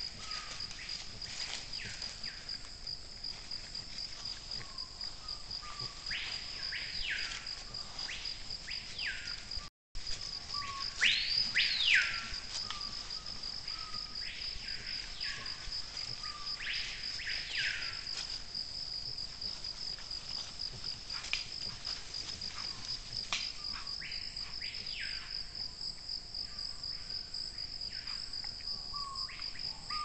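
Steady high, pulsing insect trill, with a bird repeatedly giving short whistled calls that sweep up and back down, often in twos or threes. The sound cuts out briefly about ten seconds in.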